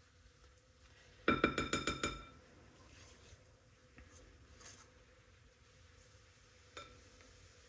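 A quick run of ringing taps on a glass mixing bowl, lasting about a second, as utensils are knocked against it to shake lard off. One softer knock follows near the end.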